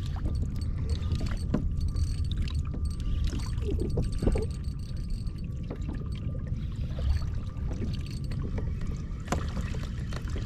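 Water slapping against a kayak hull with a low wind rumble on the microphone, and scattered clicks and creaks as a spinning reel is cranked to wind in line with a fish on.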